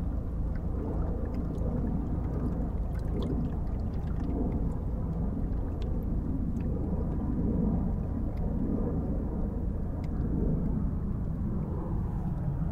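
Ambience of an urban industrial canal: a steady low rumble of distant traffic and port activity that swells and eases slightly, with faint scattered ticks above it.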